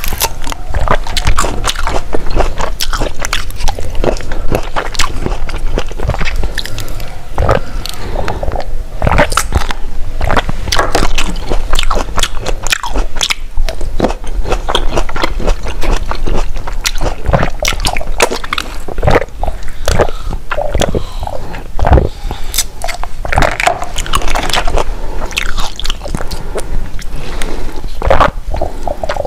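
Close-miked eating sounds: a continuous run of crisp crunching, biting and chewing, as the coloured contents of syringe-shaped tubes are pushed into the mouth and eaten.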